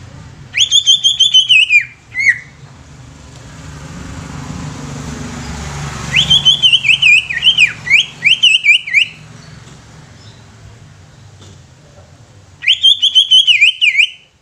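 Greater green leafbird (cucak ijo) singing in three loud bursts of rapid, chattering whistled notes, each a second or three long, near the start, in the middle and near the end. A low background rumble swells and fades between the first two bursts.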